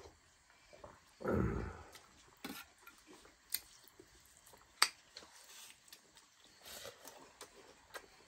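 A sip of chicken broth from a steel bowl about a second in, followed by scattered single sharp clicks and clinks of steel dishes during a meal.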